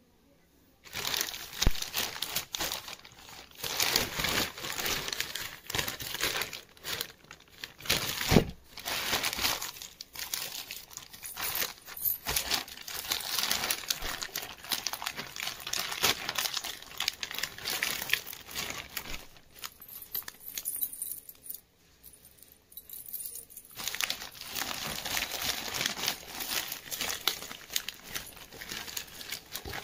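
Plastic courier mailer bag crinkling and rustling as hands pull it open, with a short lull about two-thirds of the way through.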